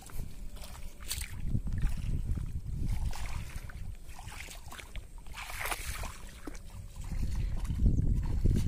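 Water splashing and sloshing as a person wades through shallow, weedy water, with irregular splashes over a low rumble.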